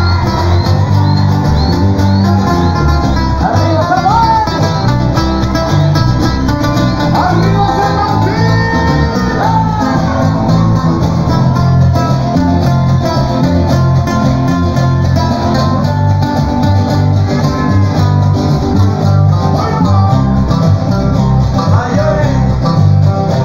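Live band music amplified through stage speakers: guitars over a steady bass, with a voice singing.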